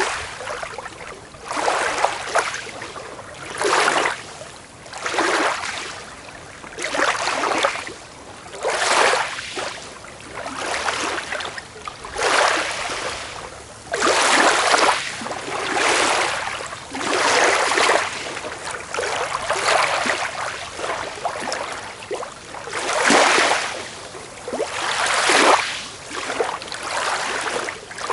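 Small waves washing up on a beach one after another. Each wash is a surge of hiss that swells and fades, a new one coming about every two seconds.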